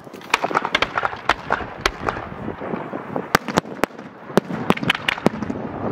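Professional display fireworks going off: an irregular series of sharp bangs and crackling reports, with a short lull near the middle and a run of louder cracks in the second half.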